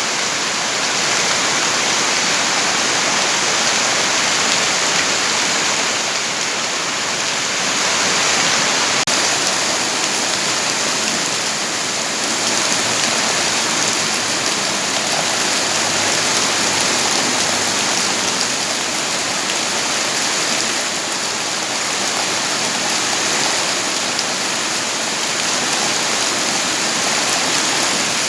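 Steady heavy rainfall: an even rushing hiss of rain that does not change.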